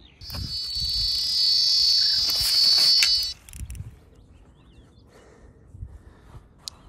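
A run on a carp rod: a high, steady buzz for about three seconds as a fish takes the luncheon-meat bait and pulls line, cutting off abruptly. Faint knocks and rustles follow.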